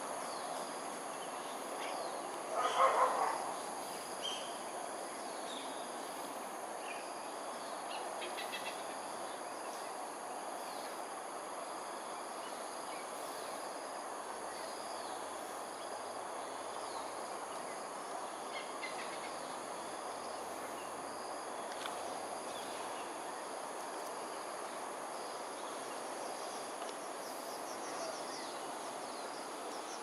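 Steady high-pitched insect chorus, crickets or similar, over even outdoor background noise. A brief louder sound comes about three seconds in, and faint scattered chirps sound now and then.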